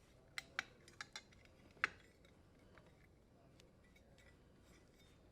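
A few faint, sharp clicks and clinks, about five within the first two seconds: plastic wire nuts and power wires handled as the wire nuts are untwisted in the dishwasher's terminal box.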